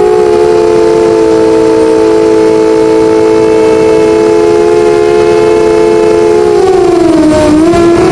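Eachine 250 FPV racing quadcopter's brushless motors whining at a steady throttle, several close pitches sounding together. About seven seconds in the pitch dips briefly as the throttle eases off, then climbs back.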